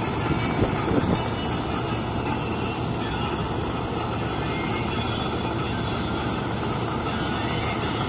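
Paddy combine harvester running steadily at working speed while its unloading auger pours threshed rice grain out of the spout, a constant machine drone.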